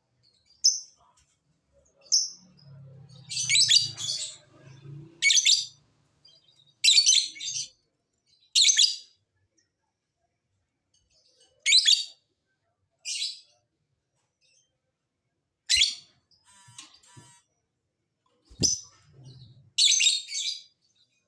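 Lovebird giving short, shrill, harsh chirping calls in separate bursts, about a dozen of them with irregular pauses between.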